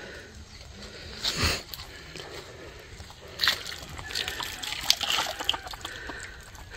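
Water sloshing and splashing in a gold-panning batea as the ground sand and mud is swirled and washed. There are stronger splashes about a second and a half in and again near three and a half seconds, then a run of small splatters.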